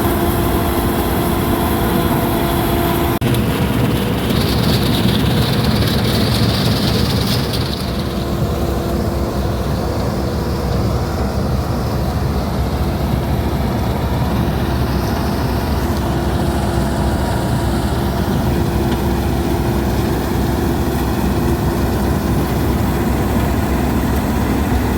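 Laverda Fiatagri 3790 combine harvester running steadily while harvesting rice: the engine and threshing machinery make a continuous heavy hum. A higher hiss rises over it for a few seconds about four seconds in.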